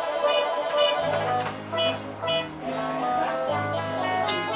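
Instrumental intro music: a melody of short pitched notes, joined by a low bass line about a second in.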